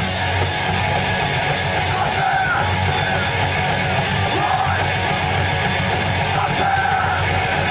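Live rock band playing loud, dense heavy music.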